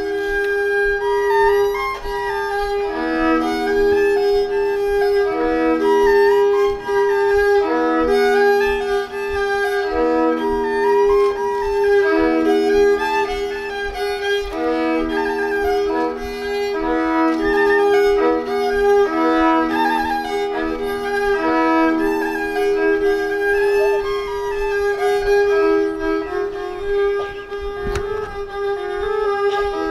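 Hardanger fiddle playing a solo traditional slått: a steady drone note sounds under a quick, ornamented melody bowed in double stops, with a regular pulse of lower notes beneath.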